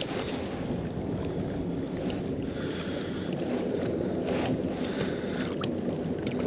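Wind buffeting the microphone over lapping river water, while a magnet-fishing rope is hauled in hand over hand, with a few light knocks.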